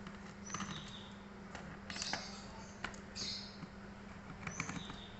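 Scattered small clicks and short squeaky scrapes of hands working on a netbook's plastic case and its screws while it is being opened, over a faint steady hum.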